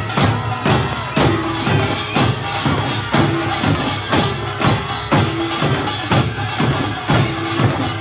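Korean pungmul folk percussion troupe playing drums in a quick, steady driving rhythm, with repeated sharp strikes.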